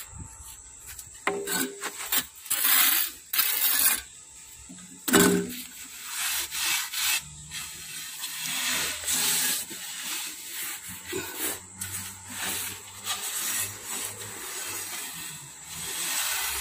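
Damp sand scraped and pressed by hand along the edge of a steel box lid, a gritty rubbing and scraping in irregular strokes. The louder scrapes come in the first few seconds. The sand is being packed around the lid to seal a heat-treatment box so the heat stays in.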